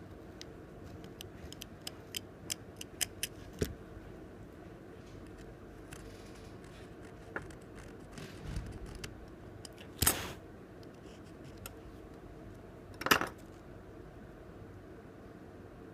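Small tools and phone parts clicking and tapping on a work surface during smartphone disassembly: a quick run of sharp clicks in the first few seconds, then two louder short clatters about ten and thirteen seconds in, over a faint steady hum.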